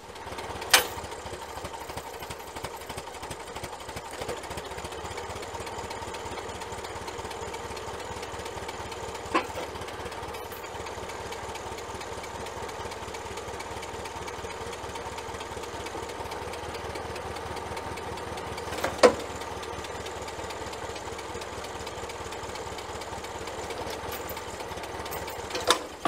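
Old Ferguson tractor engine running steadily, driving the PTO pump that powers the backhoe's hydraulics as the boom is worked. Three sharp knocks cut through, the loudest about two thirds of the way in.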